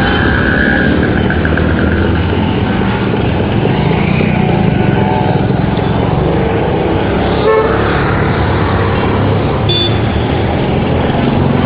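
Busy road traffic: a continuous mix of vehicle engines and tyre noise. There is a short sharp sound about seven and a half seconds in and a brief high tone about ten seconds in.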